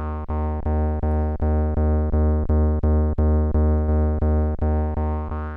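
Akai Rhythm Wolf's analog synth bass voice, on its square wave, repeating one note about four times a second through its resonant filter. The bass swells louder through the middle as the resonance is backed off, and near the end a rising resonant sweep comes back. At high resonance the bass note is cancelled and only the resonance is heard, a big drop in perceived volume.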